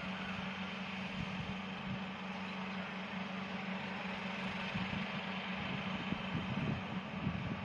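Engine running steadily at a constant speed, a low, even hum with no change in pitch.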